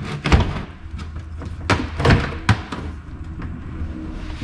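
Metal clunks and clinks as a 241 DLD transfer case shaft, with its sprocket and drive chain, is moved over and set down into the aluminium case half; about half a dozen sharp knocks, the loudest in the first two and a half seconds, then a few lighter taps, over a low steady hum.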